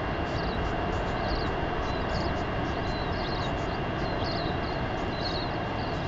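Steady wind rumbling on an outdoor camera microphone, with short high bird chirps about once a second in the background.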